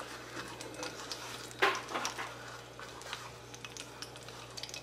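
Dried ancho chiles frying briefly in hot oil in a pan, a light crackling sizzle, with a utensil knocking and scraping against the pan as they are turned; the loudest knock comes about a second and a half in.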